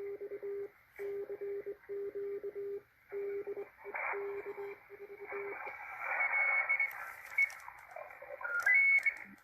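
Morse code (CW) signal received on a Malachite DSP SDR receiver: one steady low beep keyed on and off in short and long elements over shortwave band hiss. About five and a half seconds in the keying stops, the hiss grows louder, and a short rising whistle comes near the end.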